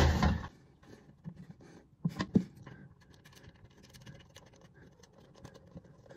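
Faint scraping and light knocks of a porcelain toilet being wiggled down onto its wax ring and flange bolts, with a short cluster of louder knocks about two seconds in.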